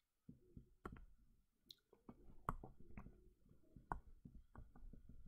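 Faint, irregular clicks and taps of a stylus on a digital writing surface while handwritten working is erased. The loudest taps come roughly a second apart.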